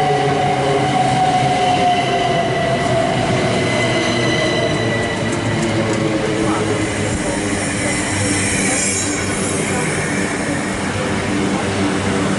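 Southeastern Class 375 Electrostar electric multiple unit running past along the platform, with steady wheel and rail noise. A whine falls in pitch over the first few seconds and then fades.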